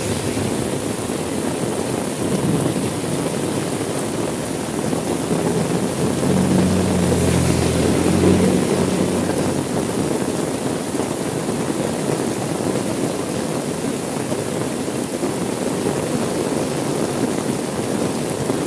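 Steady heavy rain falling on a car's window and roof, heard from inside the car. A low rumble swells for a few seconds near the middle, then fades back into the rain.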